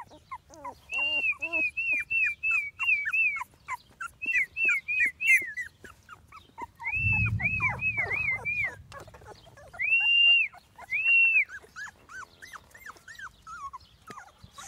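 Litter of 19-day-old chocolate Labrador retriever puppies whimpering and squealing in quick strings of short, high, arching cries that thin out near the end. A brief low rumble comes about halfway through.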